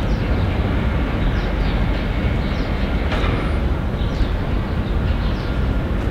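Steady low rumble of a diesel locomotive running off to one side, with a few short high chirps over it and a brief click about three seconds in.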